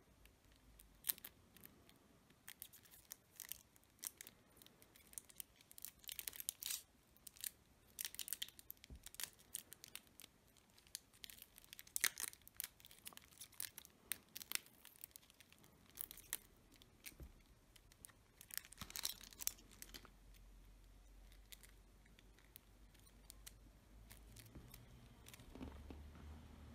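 Cellophane wrapper being torn and peeled off a deck of playing cards: irregular crinkling and crackling, with sharp snaps, dying away about three-quarters of the way through.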